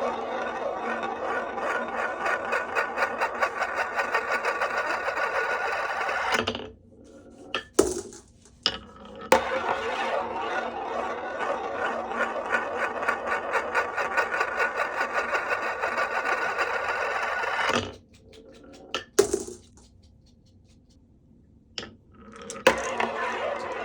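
Marbles rolling down a HABA wooden marble run, a fast continuous rattle of glass on wooden track. It comes in three long runs, with short pauses between them broken by single sharp clacks as marbles drop or hit the track.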